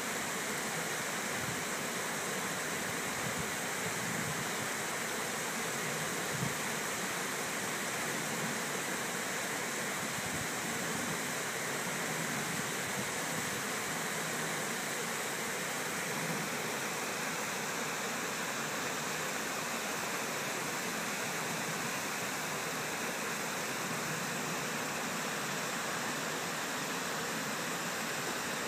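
Water pouring steadily over a low river dam spillway, an even rushing sound that holds without change.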